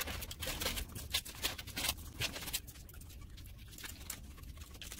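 Small children's scissors snipping through paper in quick short cuts, closely spaced over the first couple of seconds, then fewer and fainter.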